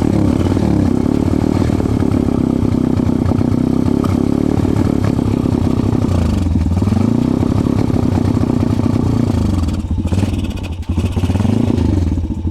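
140cc pit bike's single-cylinder engine running at raised revs, sagging twice and picking back up, then cutting out at the end.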